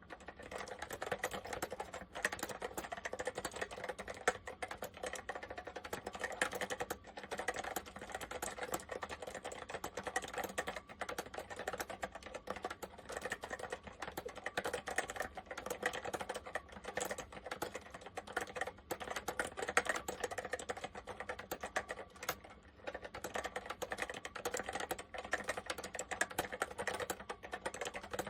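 Continuous typing on an Apple M0110A Macintosh Plus keyboard with Mitsumi Standard Mechanical switches: a fast, dense stream of key clicks with only brief pauses.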